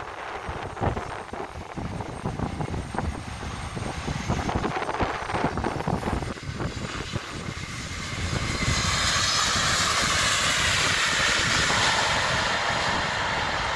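Jet engines of a landing Airbus A321 rise from about eight seconds in to a loud, steady rush with a faint high whine as it rolls along the runway. Before that, gusty wind buffets the microphone.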